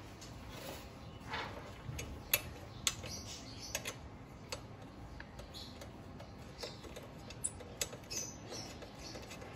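Light, irregular metallic clicks and taps as a motorcycle's metal rear fender bracket and its bolt are handled and fitted by hand.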